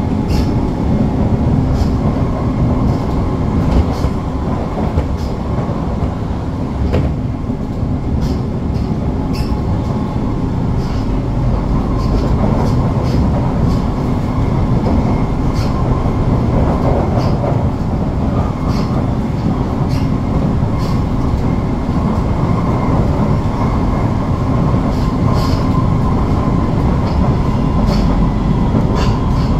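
Onboard sound of a Siemens-built SMRT C651 metro train running at speed: a steady rumble of the wheels on the rails with a faint steady whine from the traction equipment, and scattered short clicks from the track.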